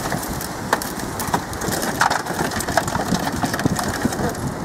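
Shattered tempered car-window glass crunching and tinkling as leftover fragments are knocked and scraped out of the frame with a hand-held rescue tool: many quick irregular clicks and crackles.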